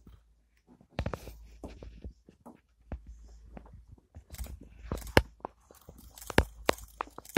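Irregular crackles and crunches of dry leaves and fallen palm fronds as a tigress moves through dry litter at the water's edge, growing more frequent in the second half.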